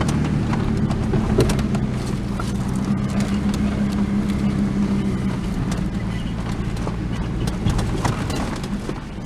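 A truck's engine running steadily at low speed, with scattered clicks and knocks over it.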